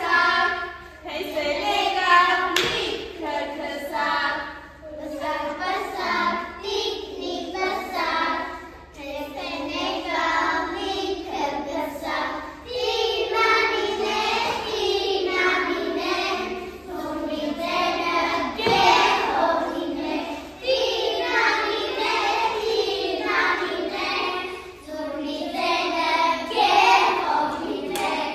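A group of young children singing a song together in sung phrases, with some hand clapping.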